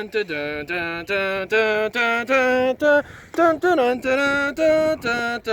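A voice singing a tune in short held notes that step up and down in pitch, several notes a second.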